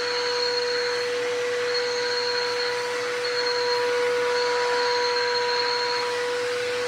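Stanley 4-gallon wet/dry shop vacuum running steadily: a constant motor whine over rushing air, with a high whistle that fades and returns as the airflow changes.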